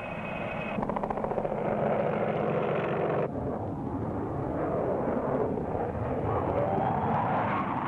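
Jet engine noise, loud and steady, from an aircraft taxiing; about three seconds in it cuts abruptly to the noise of a jet climbing out after take-off.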